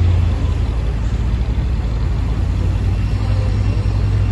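2008 Orion VII NG hybrid-electric city bus running at a stop, a steady low engine hum that weakens for a couple of seconds and then comes back.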